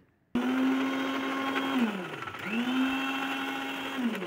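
Electric mixer-grinder blending yogurt, Rooh Afza and nuts into lassi, run in two short bursts: the motor starts abruptly and whines steadily, winds down and stops about two seconds in, then starts again and winds down near the end.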